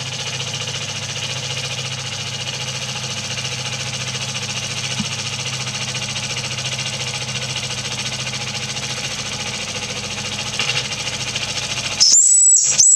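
Mamod SL1 live-steam locomotive running in place, its cylinders chattering quickly under a steady hiss of steam from the chimney. A loud, steady high-pitched tone cuts in near the end.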